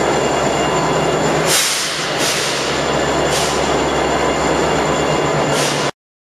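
Metra MP36PH-3S diesel locomotive running steadily at full throttle in Notch 8, a loud engine drone with steady tones in it, cut through by four short, sharp hisses of air. The sound cuts off suddenly near the end.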